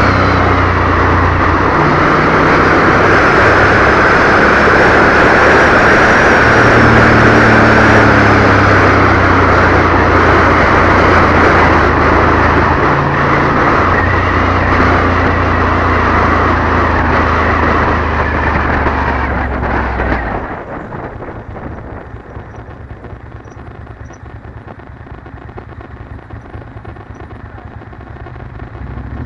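Ducati Monster's V-twin engine running under way, heard through a dense rush of wind buffeting a helmet-mounted camera's microphone. About twenty seconds in, the wind and engine sound drop suddenly to a much quieter level.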